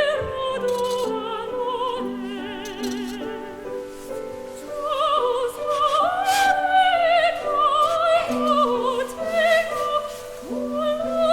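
Background music: a singer holds long notes with wide vibrato over sustained instrumental notes.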